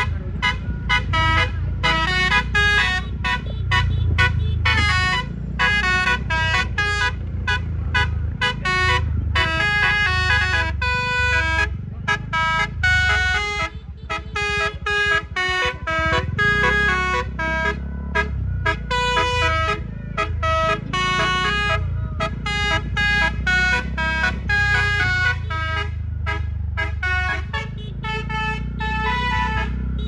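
A bus's telolet musical air horn, a DAF multi-trumpet module, playing a fast melody of rapidly changing notes, over a steady low rumble. The tune thins out briefly about halfway through, then picks up again.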